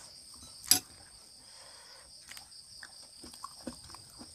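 Night insects chirping steadily in two high, unbroken bands. A single sharp click sounds under a second in, followed by soft scattered clicks of eating.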